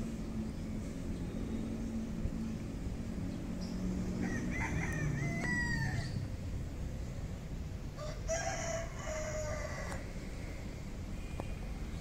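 Rooster crowing twice, about four seconds in and again near eight seconds, over a low steady rumble.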